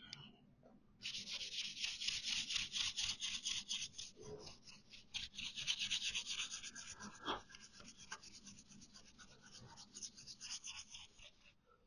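Hand-rubbing with a 600-grit abrasive pad on the primed steel body panel of a VW T25 van: rapid, even back-and-forth strokes, several a second, making a steady scratchy hiss. It starts about a second in and stops just before the end.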